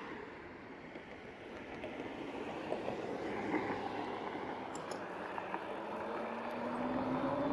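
2018 RadRover electric fat-tyre bike riding on pavement: wind rush and tyre noise that slowly grow louder. Near the end a whine from the rear hub motor rises in pitch as the bike speeds up.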